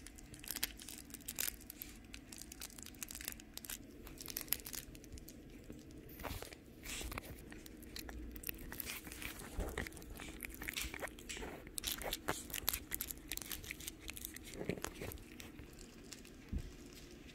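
Shih Tzu puppies play-biting each other and a plush toy: irregular soft crunching, clicking and rustling of mouthing and chewing on fur and fabric.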